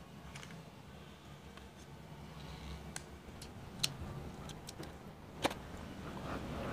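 Metal spoon clicking and scraping against a plastic tub and a plastic mixing bowl while scooping soft cheese: a few scattered light clicks, the sharpest about four and five and a half seconds in.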